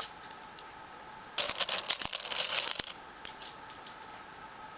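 A mass of metal coins clinking and clattering together in a ceramic pot. There is a single clink at the start, then a loud, dense jingling clatter lasting about a second and a half, starting about a second and a half in, and then a few scattered single clinks.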